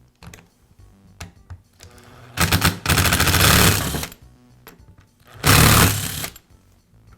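Power screwdriver running in two bursts, backing out the screws that hold the power-cord clamp in a Makita belt sander's housing.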